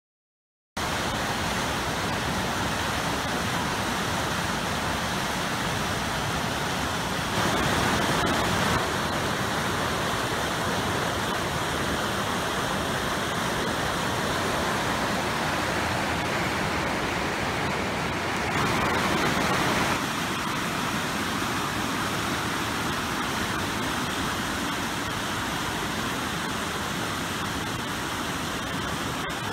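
A creek swollen by a minor flood rushing through its channel: a steady rush of turbulent water, louder twice for a second or so. It cuts in suddenly less than a second in.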